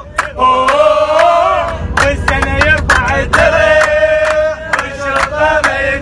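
A group of men chanting and singing a celebration song together in unison, clapping their hands in rhythm, about two to three claps a second.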